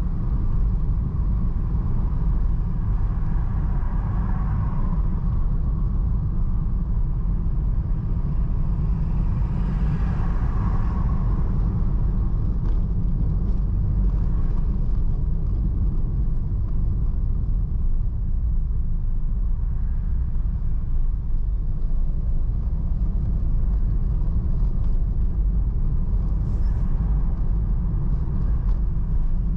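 Car driving, a steady low road and engine rumble, with brief swells of higher-pitched noise about four and ten seconds in.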